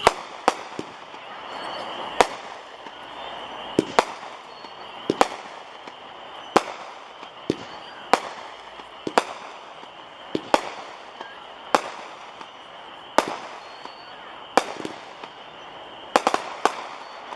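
Premium 'American Power' 25-shot 200-gram firework repeater cake firing: a sharp bang about every second or so, with a few quick doubles near the end.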